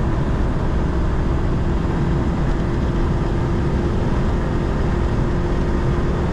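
Škoda Favorit 135L's 1.3-litre four-cylinder engine under heavy throttle at about 140 km/h, heard from inside the cabin with loud, steady wind and road noise. The car is slowly gaining speed and the engine holds one steady note.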